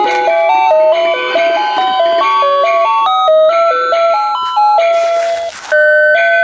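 Animated musical Santa figure's sound chip playing a Christmas tune in plain electronic beeping tones. About five seconds in there is a burst of hiss and a brief drop-out, then the next tune starts.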